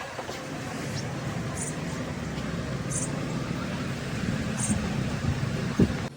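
Car engine running steadily with a low rumble, with short high chirps repeating about every second and a half and a brief thump near the end.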